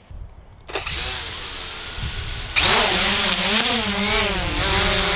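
SJRC F11 quadcopter's brushless motors and propellers spinning up under a second in. They get much louder about halfway through, with a wavering whine, as the drone is throttled up for a manual take-off after its auto take-off failed.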